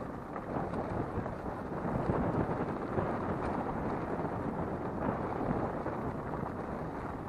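Nissan March driving along a gravel dirt track, its tyres crunching over gravel and stones in a steady, dense crackle. Wind noise sounds on the door-mounted action camera.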